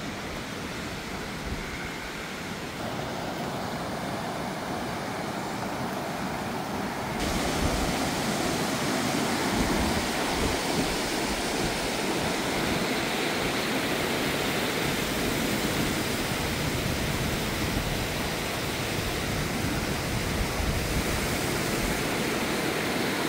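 Steady rushing of a fast, rocky mountain stream, getting louder about seven seconds in.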